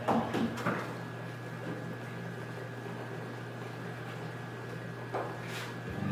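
Tweezers pushing plant stems into dry granular aquarium soil: short gritty scrapes near the start and again about five seconds in, over a steady low hum.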